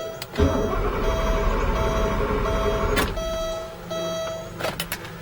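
1989 Porsche 928 being keyed to start: a warning tone beeps on and off in a steady series. A harsh low rumbling starts about half a second in and stops with a click about three seconds in, and the engine does not start.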